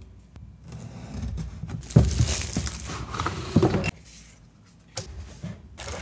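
Packaging rustling and knocking as a box is unpacked: paper inserts and a molded pulp tray being handled, with a couple of louder bumps about two and three and a half seconds in.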